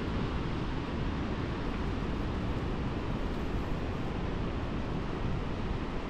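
Wind buffeting the microphone: a steady rushing rumble, heaviest in the low end, with no other distinct sound.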